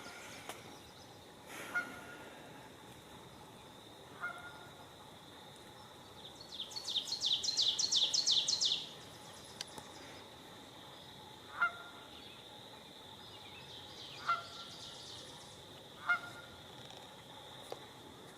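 Outdoor chorus of birds and frogs: short chirping calls repeat every two to three seconds, and a loud rapid trill of about two seconds starts about seven seconds in, over a steady high-pitched drone.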